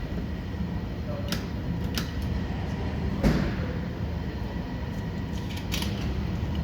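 A few separate sharp clicks and knocks from hands and tools working at the car, the loudest about three seconds in, over a steady low rumble.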